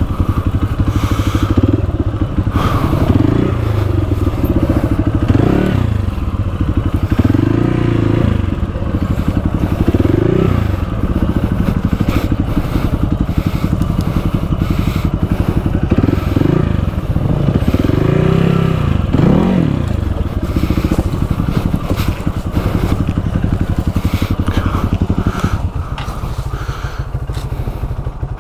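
Enduro motorcycle engine running on a trail ride, revving up and falling back again and again. Near the end it settles to a steadier, lower and quieter note.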